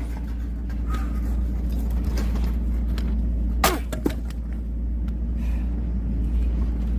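An axe strikes a knotty oak log with one sharp crack about halfway through, followed by a smaller knock, each with a brief falling ring. A steady low rumble runs underneath.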